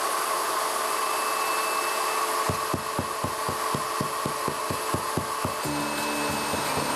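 Electric core drill running steadily in a house wall. For about three seconds in the middle it knocks about four times a second as the bit catches on wooden framing inside the wall.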